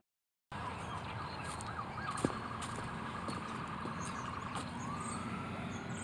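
A faint distant siren wails over steady outdoor background noise, rising slowly in pitch near the end. It starts after about half a second of silence, and there is a single sharp click a little past two seconds in.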